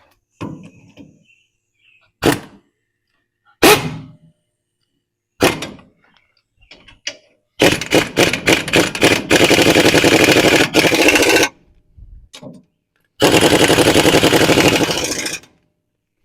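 A few single hammer blows on metal, then an impact wrench rattling bolts down on the 14-bolt axle's brake mount, in two long bursts of rapid hammering near the end.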